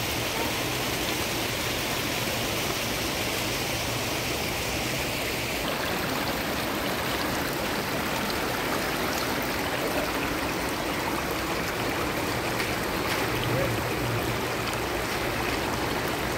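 Steady rush of running water, like a stream, with a slight change in its tone about six seconds in.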